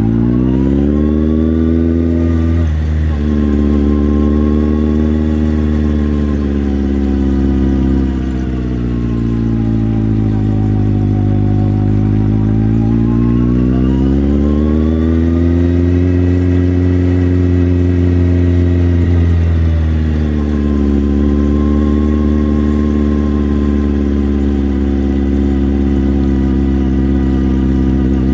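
Motorcycle engine running under way. The engine note climbs as it pulls away, with a gear change about three seconds in. It falls off and climbs again in the middle, and dips once more about twenty seconds in.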